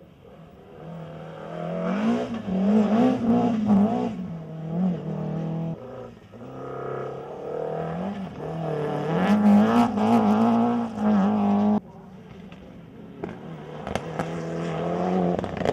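Rally cars (two BMW E30s, then a Mitsubishi Lancer Evolution) taking a corner one after another on a wet gravel stage. Each engine's pitch climbs and drops as it revs hard through the gears. The sound changes abruptly twice as a new car comes by, with sharp clicks of thrown gravel.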